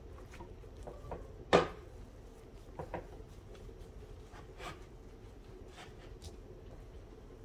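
Potato masher mashing boiled potatoes in a stainless steel pot, knocking against the pot: one sharp loud knock about a second and a half in, then a few softer knocks.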